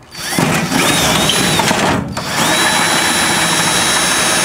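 Power drill running in two bursts: it spins up quickly to a steady high whine, stops for a moment about two seconds in, then starts again and runs steadily.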